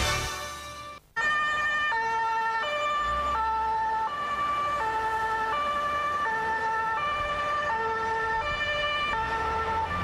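Emergency vehicle's two-tone siren, alternating between a high and a low pitch about every 0.7 seconds, the Dutch 'tee-tah' pattern. It starts abruptly about a second in, just after a news jingle fades out.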